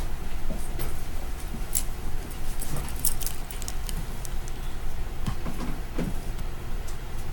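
Steady low rumble of background noise with scattered light clicks and rustles, a small cluster of them about three seconds in.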